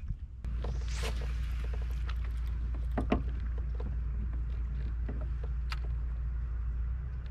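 Hobie Pro Angler 14 kayak under way: a steady low hum comes in just after the start and holds, with water noise along the hull and a few sharp clicks and knocks, the loudest about three seconds in.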